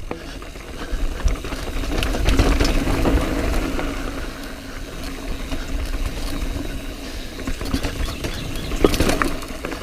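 Mountain bike rolling down a dirt trail: wind rumbling on the mic and tyres running over dirt and roots, with the bike rattling and clicking throughout, loudest a couple of seconds in.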